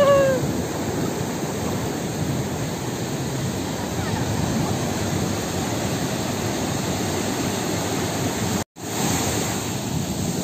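Surf washing in over a shallow sandy beach: a steady rush of breaking waves and foam. The sound cuts out for a moment about eight and a half seconds in.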